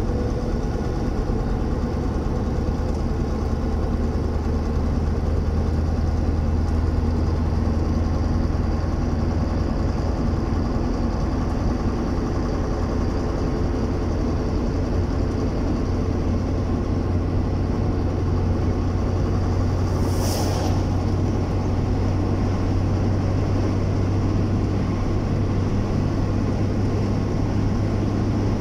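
Engine and road noise inside a vehicle cruising steadily on a highway: a constant low drone. A brief hiss cuts through about twenty seconds in.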